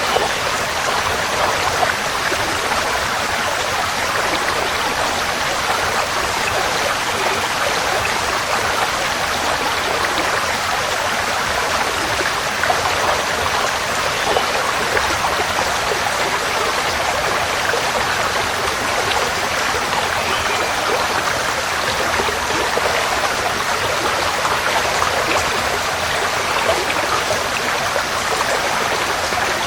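Forest stream flowing: a steady, unbroken rush and babble of water.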